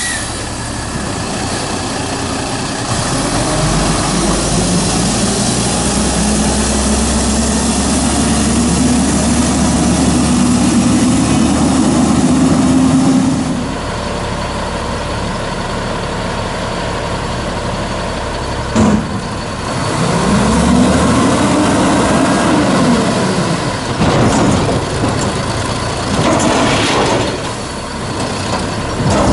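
Peterbilt 310 garbage truck's diesel engine idling and revving hard in two long swells, with a sharp knock in between. Near the end the engine revs again as the Amrep front-loader's hydraulic forks lift a dumpster up over the cab.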